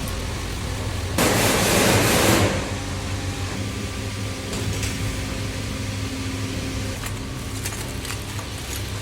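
Steady low hum of machinery on an assembly floor. About a second in, a loud hiss lasting just over a second cuts in and stops.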